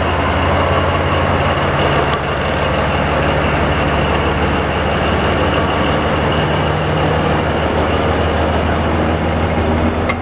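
Diesel locomotive engine running close by with a steady, loud low drone, its pitch shifting slightly about halfway through.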